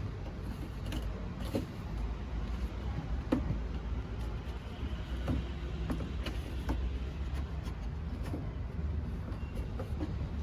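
Low steady rumble of passing road traffic, with scattered faint clicks and knocks.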